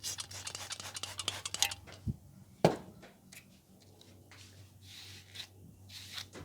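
Hands rubbing briskly through hair and over the scalp during a head massage, a rapid crackling rustle, then a dull thump about two seconds in and a single sharp pop, the loudest sound, shortly after. Softer swishing rubs follow.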